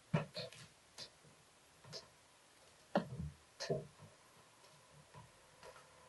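Kittens' paws thumping and skittering on a laminate floor as they run and pounce after a wand toy: a handful of irregular knocks, the loudest about three seconds in.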